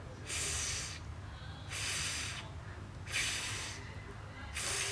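A woman's voice making the voiceless "th" sound /θ/ on its own, four times: breathy hisses of about half a second each, spaced about a second and a half apart, as a pronunciation demonstration.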